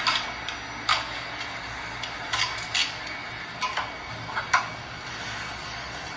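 About seven sharp clicks or taps at irregular intervals, over a steady hiss.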